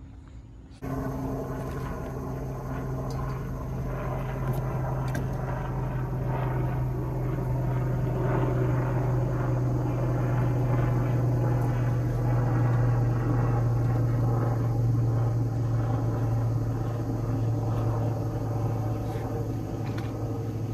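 A steady low engine drone that begins abruptly just under a second in and grows a little louder towards the middle, with a few faint clicks over it.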